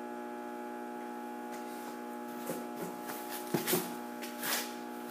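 Steady electrical mains hum from high-voltage switchgear, with a few light clicks and knocks in the second half, the sharpest about three and a half seconds in.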